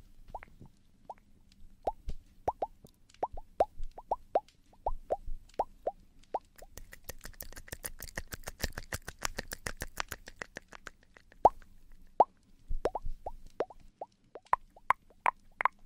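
ASMR mouth sounds close to the microphone: a string of wet mouth pops, each dropping in pitch, about two or three a second, with a quicker run of clicks for a few seconds in the middle.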